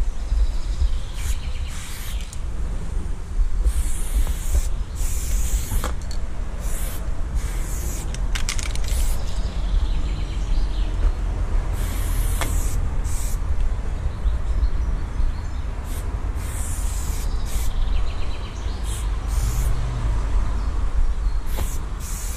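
Aerosol spray paint can hissing in many short bursts, each a fraction of a second to about a second long, as thin outline lines are sprayed onto a wall. A steady low rumble runs underneath.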